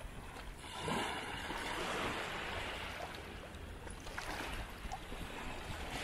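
Sea waves breaking and washing on the shore: one wave surges in about a second in, and its wash carries on slowly across the rest.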